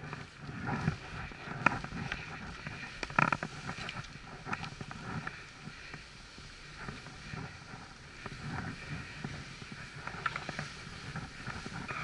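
Skis swishing and sliding through sticky snow on a downhill run, with a low rumble and scattered sharp clicks, the loudest about one and a half and three seconds in.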